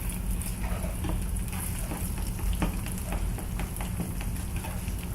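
Two eggs frying in a pan of butter and vegetable oil: a steady sizzle dotted with small pops and crackles, over a steady low hum.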